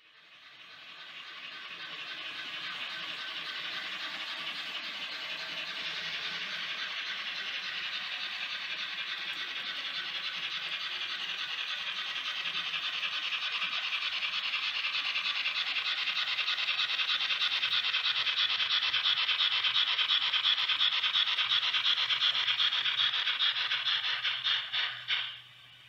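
Märklin H0 model steam locomotive and its freight train running on metal three-rail track: a steady, fast rattle of wheels and the locomotive's centre pickup shoe on the rails. It grows louder as the train comes close and cuts off just before the end.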